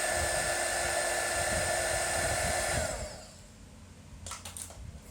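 Hot-air blower running steadily, applying heat to loosen a phone's glued-in battery, then switched off about three seconds in, its motor tone falling as it spins down. A few light clicks follow near the end.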